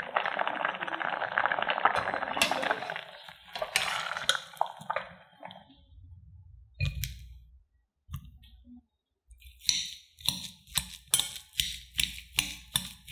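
Wire potato masher mashing boiled potatoes in a glass bowl: in the second half, an even run of soft squishes and clinks against the glass, about three a second. The first few seconds hold a steady rushing hiss, followed by a few scattered knocks.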